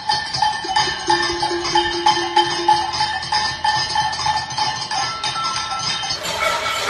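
Many pots and pans being banged, a cacerolada protest: rapid, regular metallic clangs that ring. Near the end it switches to another recording of the same din.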